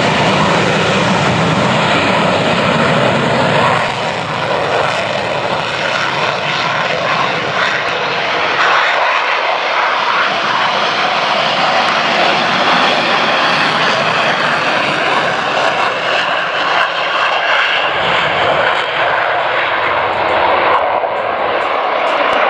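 Fighter jet engine noise, loud and continuous, from military jets flying the display. The deep low rumble drops away about four seconds in and comes back briefly near the end.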